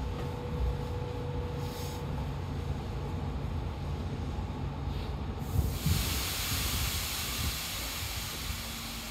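Eidan 7000 series subway train heard from inside the car: a low rumble, with a steady whine for the first two seconds. About five and a half seconds in, a thump and then a loud hiss of air begin and carry on.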